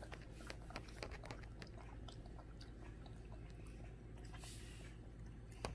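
German Shepherd puppy lapping milk from a paper bowl: faint, irregular wet clicks of its tongue, trailing off partway through.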